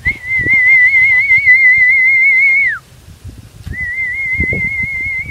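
A person whistling to call dogs: two long, warbling whistles, each held at one pitch and ending with a downward slide, the second quieter and shorter than the first.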